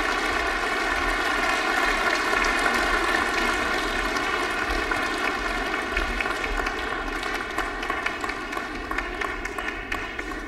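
Audience applauding in a concert hall, the clapping dying away over the last few seconds.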